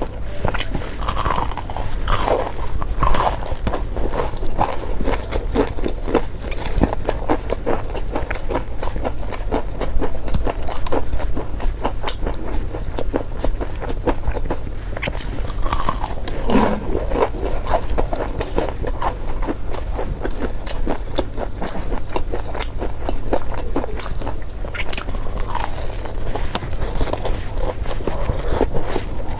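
Close-miked biting and chewing of crispy fried chicken: dense crackly crunches of the coating, with wet mouth sounds, over a low steady hum.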